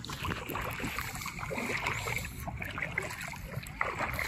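Water splashing and sloshing in short, irregular bursts over a steady low rumble.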